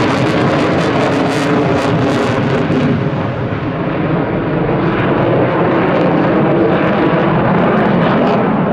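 Dassault Rafale C fighter's twin Snecma M88 turbofans running at display power, a loud, steady jet roar with crackle in the hiss. The high hiss thins out about three seconds in, while the low roar carries on.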